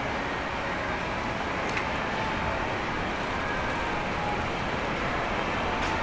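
Steady city street noise of passing road traffic, an even rumble and hiss, with a faint click about two seconds in.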